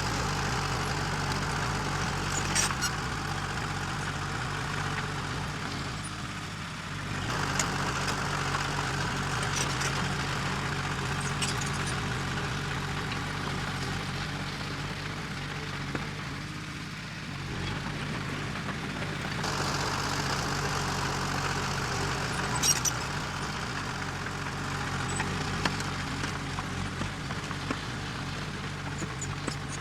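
Diesel engine of heavy earthmoving machinery running steadily, easing off briefly twice, with scattered sharp metallic clanks and ticks.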